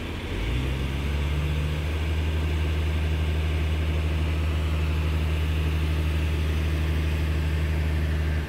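Boat hoist's engine picking up about half a second in, then running steadily at raised speed: a loud, even, low hum.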